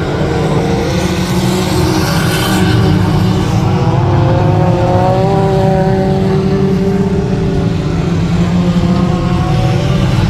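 Engines of several small pickup trucks racing on a dirt oval, one climbing in pitch about halfway through as it speeds up.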